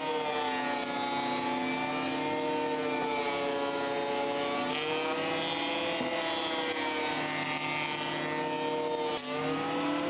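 Benchtop surface planer running steadily with a high motor whine, its pitch sagging and recovering as white pine boards feed through the cutterhead. About nine seconds in there is a brief knock and the pitch dips, then climbs again.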